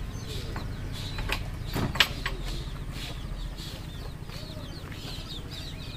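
Chickens clucking, with small birds chirping, and a single sharp knock about two seconds in.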